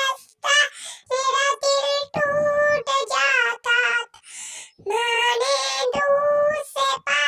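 High-pitched, childlike singing voice in short held phrases with wavering pitch, broken by brief gaps.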